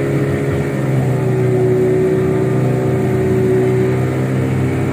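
Motorboat engine running steadily as the boat cruises over open water, an even hum that holds its pitch throughout.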